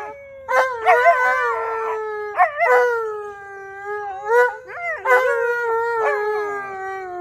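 An Alaskan malamute and a Siberian husky howling together, with long howls that slide slowly down in pitch and overlap, broken by short yips. A woman howls along with them.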